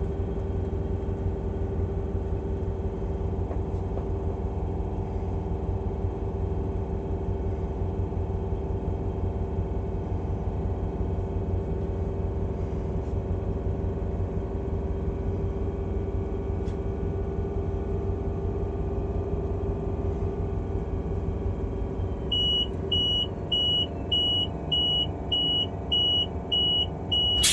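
The 90 class locomotive's diesel engine runs steadily in the cab. From about 22 seconds in, the vigilance alarm sounds a rapid series of high beeps, under two a second: the unacknowledged vigilance warning that comes before a penalty brake application.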